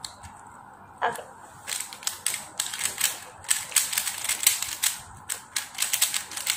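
QiYi Thunderclap V3 M magnetic 3x3 speed cube being turned fast by hand: a quick, uneven run of plastic clicks as the layers turn and snap into place, starting about a second and a half in.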